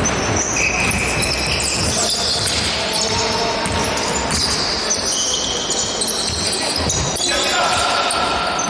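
Basketball game in a gym: a ball bouncing, many short high squeaks of sneakers on the court, and players' voices calling out.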